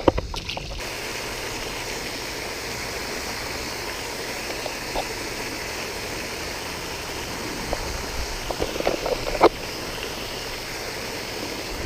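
Steady rushing and splashing of a pond fountain, with a few light clicks and one sharper knock near the end.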